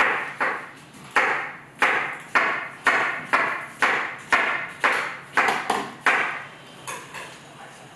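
Knife chopping onion on a cutting board: a steady run of about two chops a second that stops about six seconds in, followed by a couple of faint taps.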